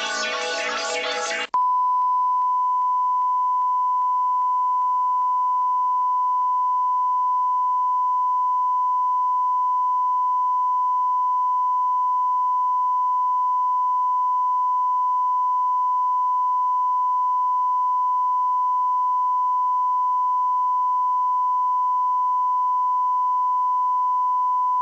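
Electronic ident music cuts off suddenly about a second and a half in, replaced by a steady, unbroken single-pitch test tone that accompanies the colour-bar test card at a TV channel's end of broadcast.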